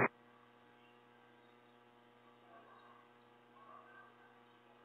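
Faint steady electrical hum on an air traffic control radio feed between transmissions, with a couple of faint soft blips.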